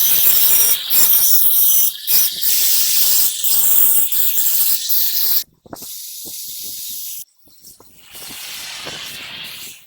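Pressurised gas hissing out in three bursts: a long, loud one of about five seconds, then two shorter, quieter ones.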